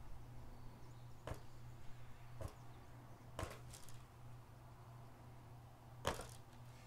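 Ultra Punch Needle stabbing through weaver's cloth stretched tight in a frame, one short click per stitch: three about a second apart, then one more after a longer pause. A steady low hum lies underneath.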